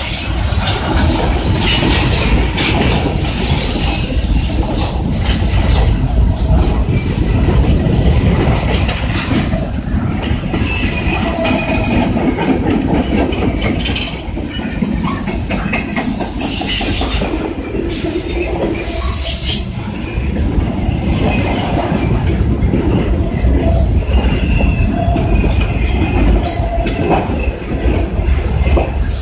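Loaded coal hopper cars of a slow-moving freight train rolling past close by: a steady heavy rumble of wheels on rail, with clacking over the rail joints and the wheels squealing at times, most around the middle.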